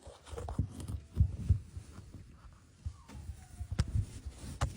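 Irregular dull thumps and bumps, with a few sharp clicks near the end: knocking and handling noise as hands work at the opening in the wall.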